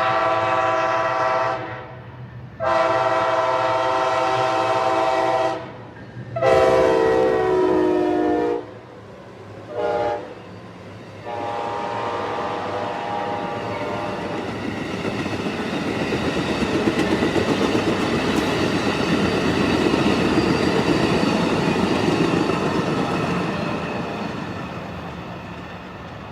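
Amtrak ALC-42 passenger locomotive sounding its horn in several long blasts, a short one and a last long one. The pitch drops as the locomotive goes by, then the train's wheels clatter over the rail joints, growing louder and fading away near the end.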